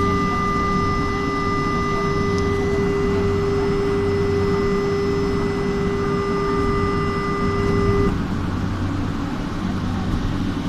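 Light-rail train's steady electronic warning tone sounding for about eight seconds and then cutting off suddenly, over the low hum of the train car, as it stands at a station; typical of a door-closing signal.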